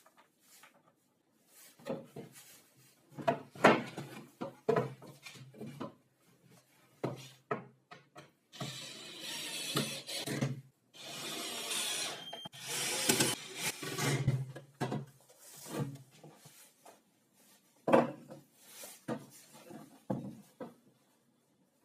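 Wooden pieces being handled, knocked and set down, with several seconds of scraping or rubbing on wood in the middle.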